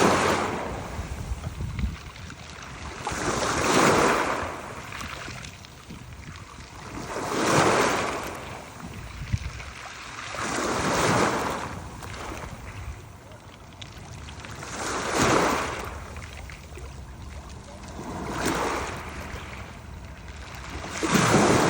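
Sea waves washing in, about one every three to four seconds. Each swells to a rush and then falls away.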